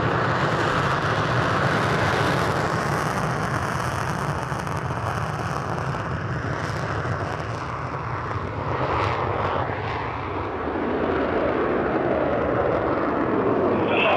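Eurofighter Typhoon's twin EJ200 turbofan jet engines running at high power: a loud, continuous rush of jet noise that shifts in tone around the middle and swells again near the end.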